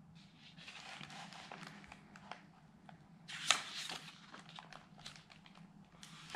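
Paper page of a picture book being turned by hand, soft rustling with a louder swish about halfway through.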